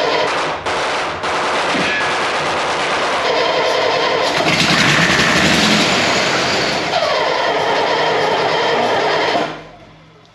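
AEC Matador six-cylinder diesel engine turning over and firing on sprayed ether, a rapid stutter of loud bangs, then cutting out sharply near the end. It runs only on the ether: no diesel is combusting.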